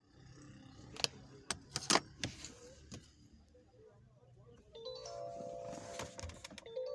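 Several sharp clicks in the first three seconds, then a car's electronic warning chime: several held tones sounding together, a second chime starting near the end.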